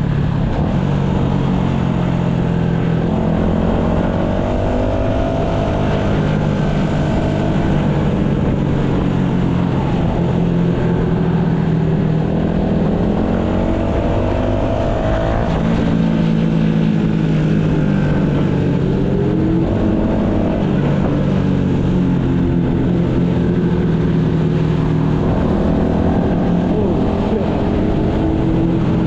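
Yamaha MT-125 motorcycle's single-cylinder engine running while ridden, its pitch climbing with the revs and dropping back several times, over a steady low rumble.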